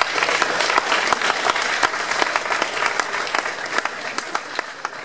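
Audience applauding, many hands clapping at once, slowly dying down near the end.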